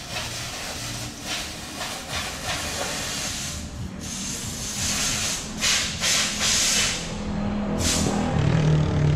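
Compressed air hissing in bursts from a pneumatic tool worked on bare car body metal. A low droning hum comes in and grows louder near the end.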